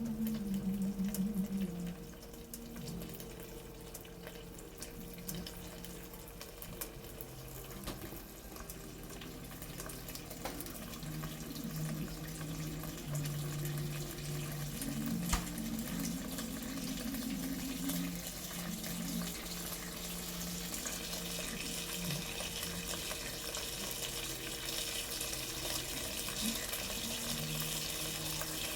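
Water running from a kitchen tap into a sink, a steady hiss that grows louder about two-thirds of the way through.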